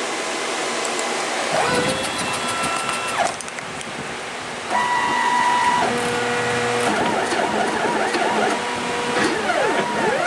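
Nema 23 stepper motors driving the axes of a CNC-converted Sieg X2 mini mill, whining as they move. The pitch holds steady during constant-speed moves and sweeps up and down with each acceleration and deceleration, in repeated quick arcs toward the end, over a steady hiss.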